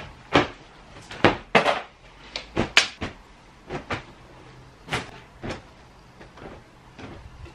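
Irregular sharp knocks and clacks from a wardrobe as clothes are pulled off its rail and taken out, the loudest in the first three seconds.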